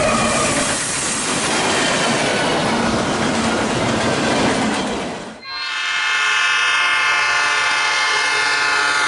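HO-scale model trains running on the layout, heard as a steady rushing noise. After a cut about five seconds in, a sustained chord of steady tones sounds, like a diesel locomotive horn.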